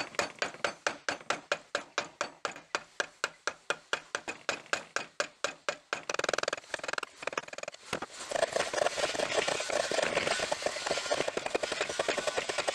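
Hand tool cutting or shaping wood with quick, regular strokes, about five a second, turning into a denser, faster scraping from about eight seconds in.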